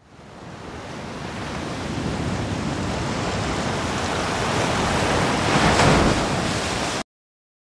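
A rushing noise that swells steadily in loudness for about seven seconds, then cuts off abruptly into dead silence.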